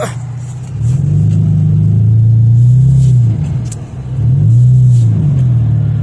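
Nissan 350Z's 3.5-litre V6 heard from inside the cabin, revving up and dropping back twice while driving through deep snow.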